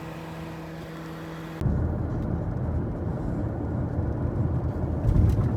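Car noise: a quiet steady hum with a few held low tones, then, after an abrupt cut about a second and a half in, a louder low rumble of a car.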